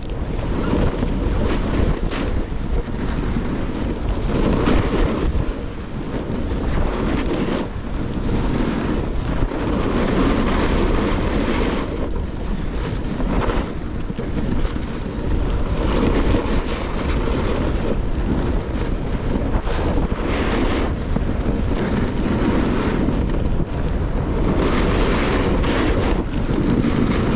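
Wind buffeting a moving action camera's microphone, over the scrape of snowboard edges on firm, groomed snow. The noise swells and eases every second or two as the boards carve turns.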